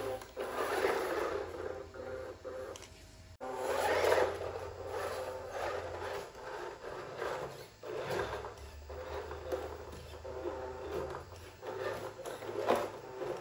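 Scale RC Range Rover Sport's small electric motor and gearbox whining as it drives through loose sand, with its tyres scraping and crunching in the sand. The whine swells and fades with the throttle and breaks off sharply a little over three seconds in before carrying on.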